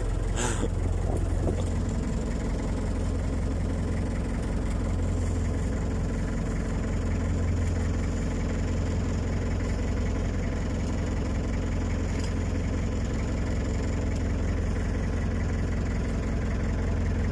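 Fishing boat's engine idling, a steady low rumble that holds even throughout.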